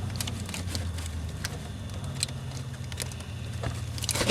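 Scattered light clicks and taps of parts and tools being handled, with a louder clatter about four seconds in, over a steady low hum.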